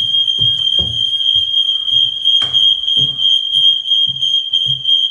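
Smoke detector alarm sounding one loud, steady high-pitched tone, held on by its test button during a test. Low handling thumps and a sharp click about two and a half seconds in.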